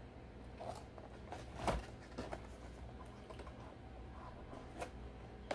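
Faint rustles and light taps of hands handling a cardboard gift-set box as it is turned over and set down on a turntable, with one louder tap about a second and a half in.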